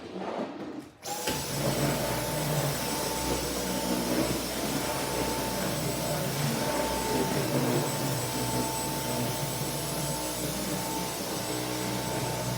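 Dyson vacuum cleaner switched on about a second in, then running steadily with a rushing airflow and a thin, steady whine.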